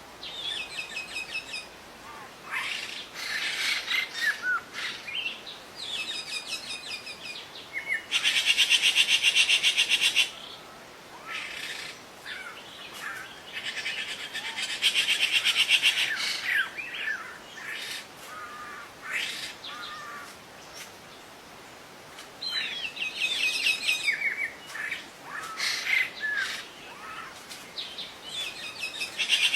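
Songbirds singing in repeated phrases of rapid, high chirping notes and trills with short pauses between. The loudest, densest bursts come about eight and fifteen seconds in.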